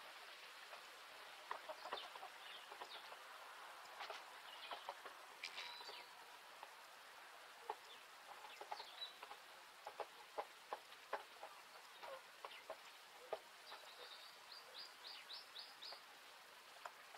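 Faint hens clucking now and then among scattered light ticks and taps, with a quick run of about seven short high chirps near the end.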